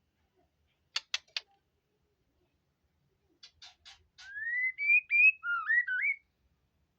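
Murai batu (white-rumped shama) singing: three quick sharp clicking notes about a second in, then after a pause four short raspy notes and a whistled phrase of sliding, mostly rising notes.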